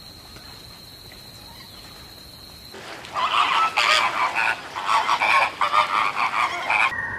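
A steady high insect buzz over faint hiss, then, almost three seconds in, a large flock of flamingos breaks into loud, dense honking calls that overlap without pause.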